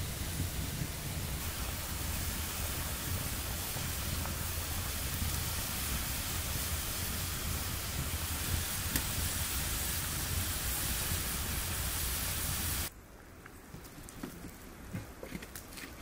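Walnut stew boiling hard in a cast-iron pot over a wood fire: a steady, dense sizzling hiss with a low rumble beneath. It cuts off suddenly near the end, leaving a much quieter background with a few faint clicks.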